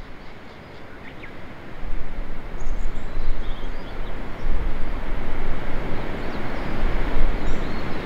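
Strong gusty wind buffeting the microphone, rising after the first second or so. Through it come a few faint, short, high calls from a crested kingfisher, clustered around the middle and again near the end.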